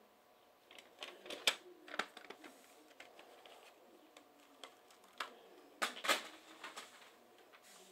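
Plastic CD jewel cases clicking and clattering as they are handled, opened and knocked about. It comes as a scatter of sharp clicks, the loudest about six seconds in.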